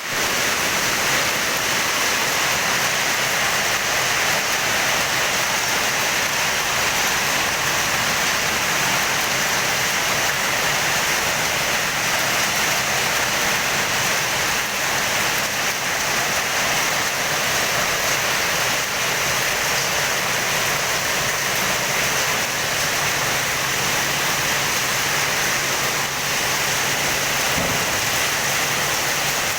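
Steady rainfall, an even hiss that holds at one level throughout.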